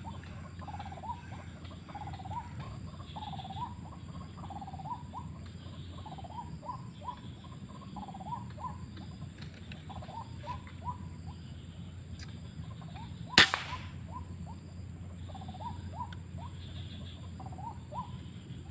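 White-breasted waterhen (ruak-ruak) calls: short rising-and-falling notes repeated in phrases over a steady low hum. One sharp shot cracks out about 13 seconds in.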